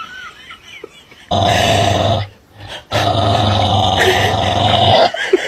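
Small black-and-tan dog growling in two long, loud bouts, the first about a second long and the second about two seconds, as a snarling warning with teeth bared.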